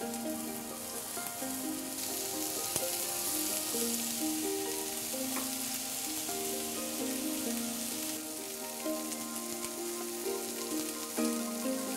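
Ground-beef kebabs sizzling as they fry in hot olive oil in a frying pan, the sizzle growing louder about two seconds in as more kebabs go into the pan. A light background melody plays over it.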